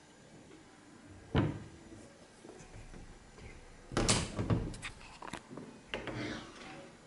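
Wooden wardrobe doors being handled and opened: a single knock a little over a second in, then a burst of clicks and rattles about four seconds in, with a few more clicks and knocks afterwards.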